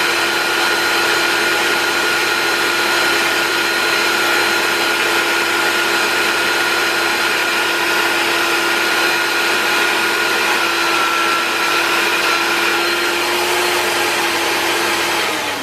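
Bosch hobby drill press running steadily at high speed, drilling a tapping hole for an M3 thread into an aluminium part. The motor's steady whine cuts off just before the end as the drill is stopped.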